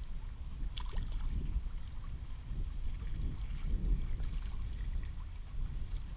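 Wind rumbling on the microphone, with water lapping against a plastic kayak hull and a light click about a second in.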